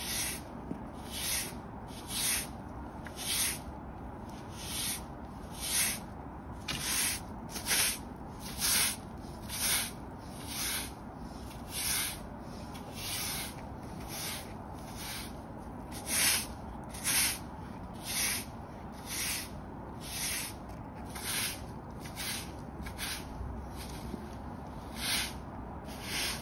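Hard-bristle broom sweeping dirt and debris across brick pavers in short, regular strokes, about one a second, each stroke a brief bristly scrape.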